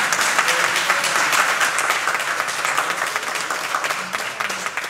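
Congregation applauding, with a few voices calling out over the clapping; the applause slowly dies down toward the end.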